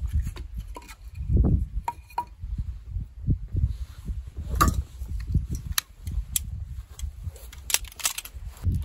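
Split firewood laid onto a small fire in a folding fire grill, wood knocking against wood, then the burning wood crackling with sharp pops, a cluster of them near the end. A steady low rumble runs underneath.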